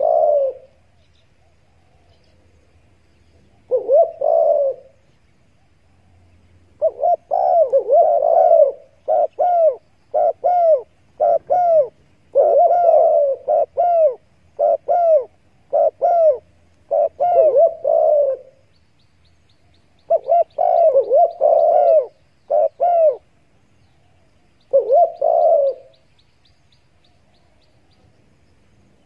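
Spotted dove calls: soft, low coos in phrases. There is a short phrase about four seconds in, then a long run of closely spaced coos lasting about ten seconds. After a brief pause comes another run, and a last short phrase near the end.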